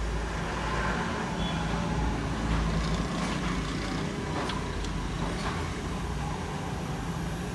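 Steady low rumble of vehicle traffic, with a few short, sharp clicks in the middle.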